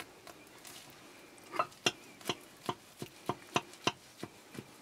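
Kitchen knife cutting brownie bars in a glass baking dish, the blade knocking on the glass in a run of clicks about three times a second that starts about a second and a half in.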